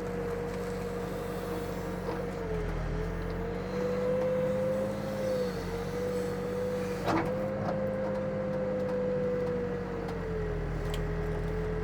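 Backhoe engine running under load while digging, a steady hum whose pitch dips and rises slightly as the machine works, with a short clank about seven seconds in.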